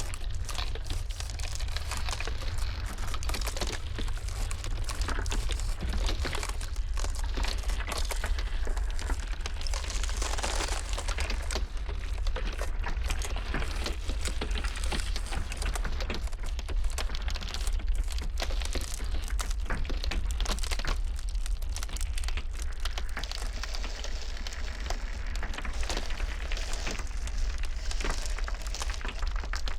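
Ice cracking and crackling: a dense, continuous run of small sharp cracks and crinkles over a steady low rumble.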